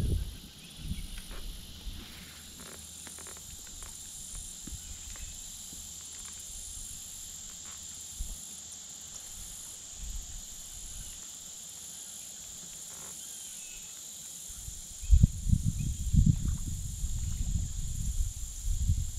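Insects buzzing in a steady high-pitched chorus with a faint pulsing above it, over a few small clicks. About fifteen seconds in, a louder low rumble starts and carries on.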